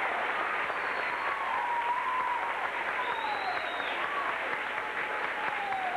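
Audience applauding at the end of a song, with a few drawn-out cheers rising and falling over the clapping.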